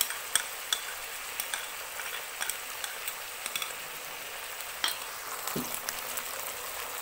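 Chopped onion, green pepper and spring onion sizzling in hot oil in a nonstick wok: a steady frying hiss with scattered small pops and crackles.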